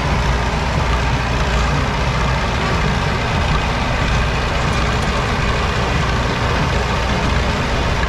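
Case 830 tractor engine running steadily while pulling a New Idea small square baler that is baling hay.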